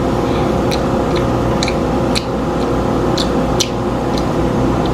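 Breaded chicken tenders frying in hot oil, with scattered sharp pops and crackles from the grease over a steady hum.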